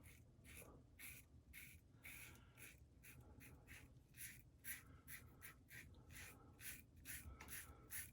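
Safety razor with half a Gillette Nacet blade scraping through lathered stubble in quick, short, faint strokes, two to three a second, coming faster after the halfway point.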